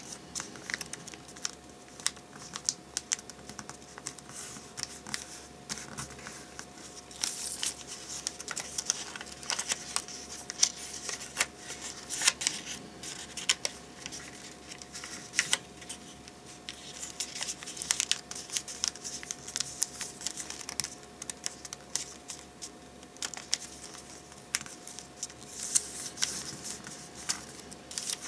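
A sheet of origami paper being folded and creased by hand: irregular crisp rustles, crackles and short ticks as the paper is bent, flattened and pressed into creases.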